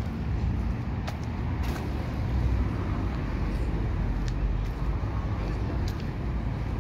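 Street traffic: a steady low rumble of motor vehicles with a few brief clicks.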